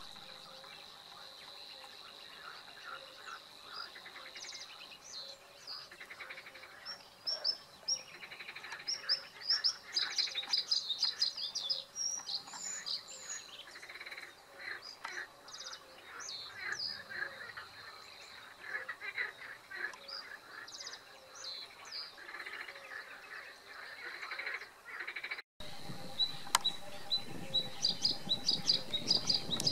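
Male bluethroat singing: varied phrases of chirps, buzzy notes and quick runs of repeated notes, over a steady high whine.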